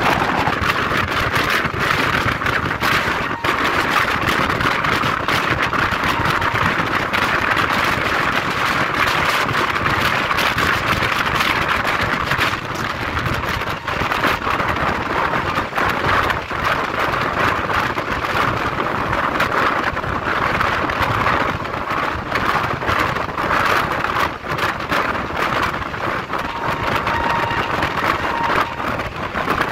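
Train running along the track, heard from on board: a steady rush of wind and rolling wheels with constant rattling and clicking.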